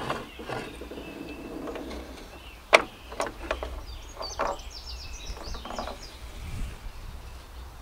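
Knocks and clatter of an antique Singer treadle sewing machine head and its wooden cabinet being handled as the head is lifted up out of the cabinet, with one sharp knock about three seconds in. Birds chirp in the background about halfway through.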